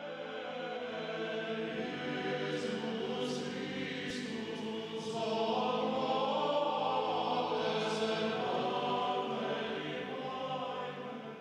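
Choir singing a slow liturgical chant with long held notes, fading out near the end.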